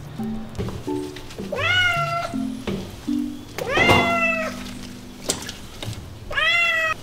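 Wet Persian cat meowing three times during its bath, each a long cry that rises and then holds its pitch, over light background music.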